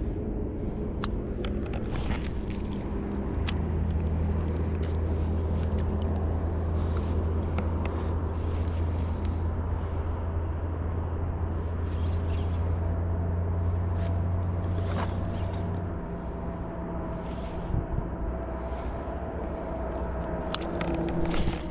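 A steady low motor hum with several held tones, its deepest tone dropping out about sixteen seconds in, with short high hissing swishes every second or two and a few sharp clicks over it.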